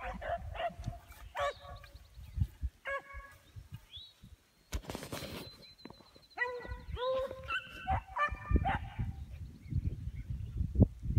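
Beagles baying on a run, giving short repeated bawls in clusters, with more than one hound's voice overlapping in the later part.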